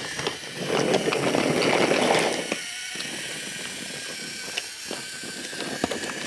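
Wooden toy train engine and cars rolling along wooden track, wheels rumbling with scattered clicks and knocks. Louder for the first two seconds or so, then a steadier, quieter rolling.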